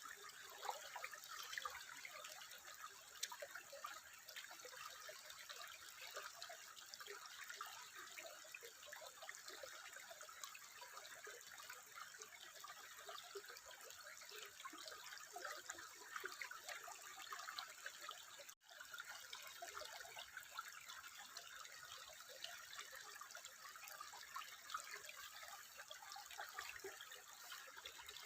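Water trickling and babbling steadily in a quiet, even stream of small splashes and drips, with a momentary break about two-thirds of the way through.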